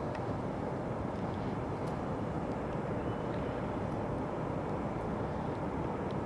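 Steady low rumble of distant outdoor background noise, even in level, with a few faint ticks.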